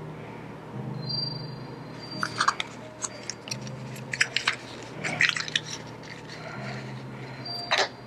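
Crinkling and clicking of small packets and stationery items being handled, a scattered run of sharp crackles over a faint low background hum.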